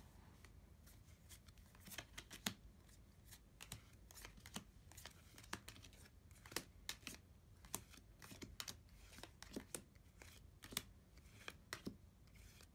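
Faint handling of Dragon Ball Super trading cards being flipped through one by one: soft, irregular clicks and taps as the cards slide over each other.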